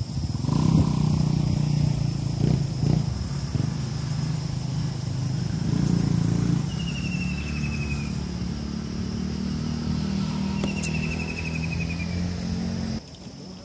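A small engine runs steadily nearby with a low, even drone, then cuts off abruptly near the end. Two short, high trills that fall in pitch sound over it.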